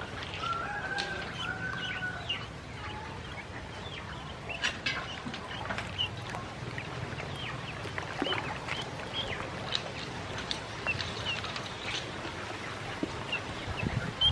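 Ducklings peeping: many short, high cheeps, each sliding down in pitch, scattered irregularly. A lower, wavering call sounds in the first two seconds.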